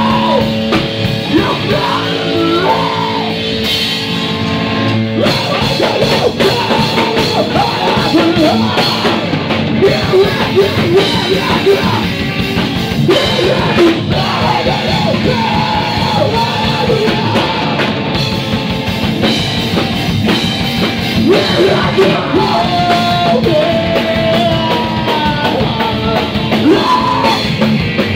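Live rock band playing: electric guitar and drum kit, with sung and shouted vocals into microphones.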